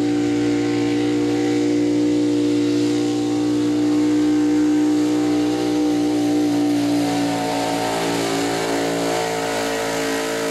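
Engine of a modified gasoline pull truck running flat out at a steady high rpm under the load of a pulling sled, its pitch holding level and wavering slightly near the end.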